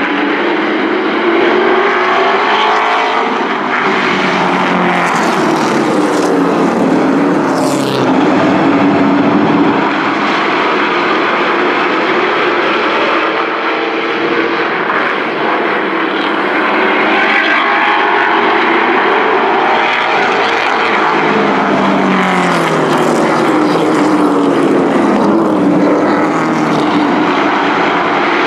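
A pack of race trucks at speed on an oval track, many engines running hard together, the engine notes rising and falling as the trucks pass by.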